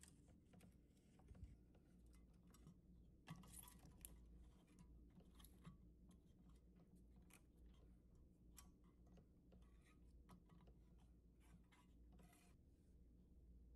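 Faint, scattered clicks and rustles of tape being threaded past the head cover of a Sony TC-560D reel-to-reel deck and wound by hand onto its plastic take-up reel.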